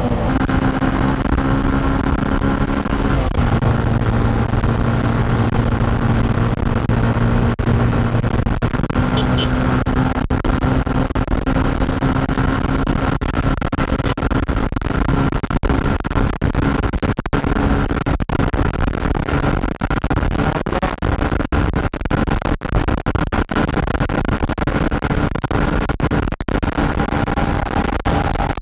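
Motorcycle engine running steadily at highway cruising speed, above 100 km/h, its note shifting slightly about three seconds in. Heavy wind rush and buffeting on the handlebar-mounted microphone.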